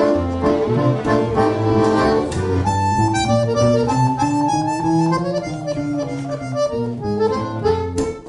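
A gypsy-jazz swing trio of viola, accordion and double bass playing. The double bass's steady low notes drop out for a few seconds mid-way, leaving held accordion and viola notes, and come back near the end.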